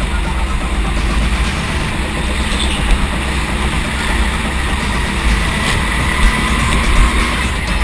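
Go-kart engine running at racing speed, heard from onboard the kart, a steady mechanical drone with a few brief louder peaks.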